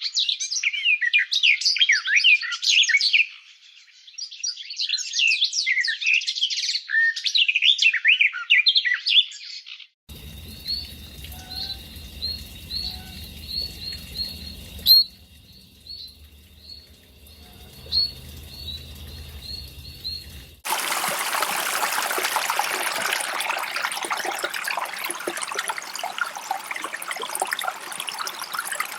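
Birds chirping densely for about the first ten seconds. Then come sparse short chirps over a steady low hum, and from about twenty seconds in, running water.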